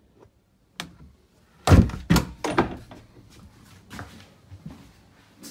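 Wooden engine-access cover aboard a sailboat being closed: a light click, then a cluster of heavy thunks and knocks about two seconds in, followed by lighter knocks.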